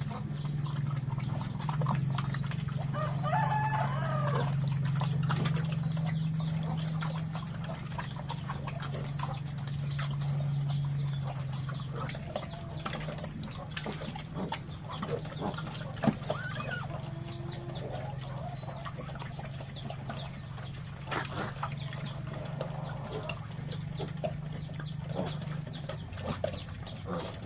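Chickens clucking, with a rooster crowing once about three seconds in, over a steady low hum and scattered clicks.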